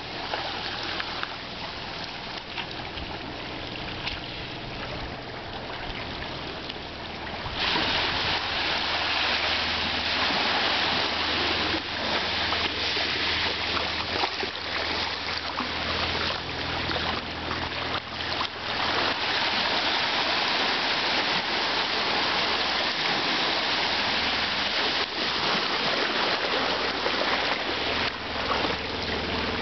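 Small sea waves washing in and draining back over sand and shingle at the water's edge, a steady rushing wash. It turns louder and brighter about seven seconds in, when the wash is close by.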